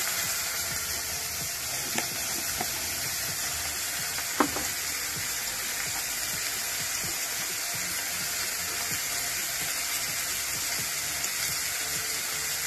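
Dry fish, onion and green chillies frying in a saucepan: a steady sizzling hiss, with two light knocks about two and four seconds in.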